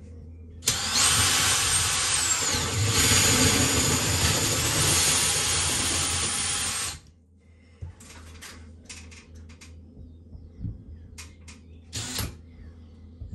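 Cordless drill spinning a 65 mm hole saw through a plasterboard ceiling, cutting a hole for a recessed downlight. It runs for about six seconds with a high motor whine whose pitch drops for a while midway, then stops suddenly, followed by a few light knocks.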